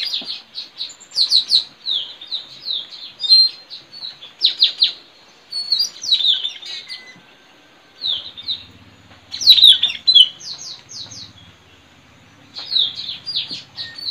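Wild blue-rumped parrots (tanau) calling: clusters of quick, high, shrill chirps, with short pauses between the clusters.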